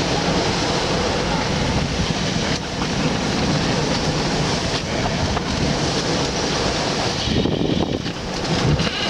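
Strong wind blowing over the microphone and rough seas rushing past a sailboat's hull, a steady loud noise.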